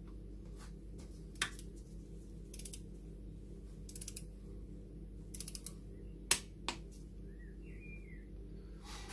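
Ratchet torque wrench clicking on cylinder head bolts as they are tightened to the first-stage 10 Nm: short runs of quick ratchet ticks and scattered clicks, with one sharper click about six seconds in.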